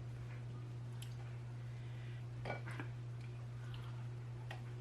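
Quiet lobster-eating sounds: a few soft clicks and wet mouth sounds of chewing, over a steady low hum.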